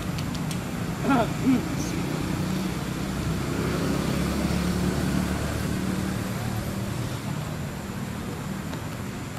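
Steady low motor hum, with two short, loud cries falling in pitch about a second in.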